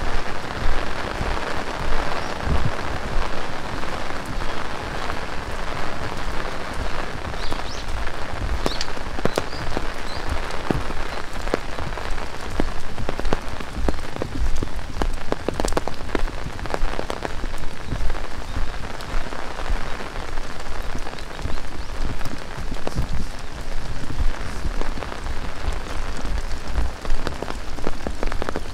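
Heavy rain falling steadily, with many sharp drop impacts ticking close by.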